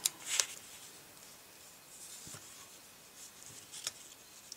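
Faint paper handling as small die-cut paper pieces are placed and pressed onto a card: two light, sharp ticks right at the start and another shortly before the end, with soft rustling between.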